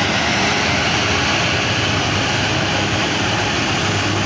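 Large tour bus passing close on a steep uphill climb: its diesel engine under load and its tyres make a loud, steady rush of noise.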